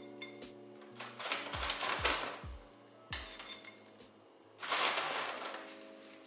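Kitchen handling noises of dishes and utensils in two noisy stretches, about a second in and again near five seconds in, over soft background music.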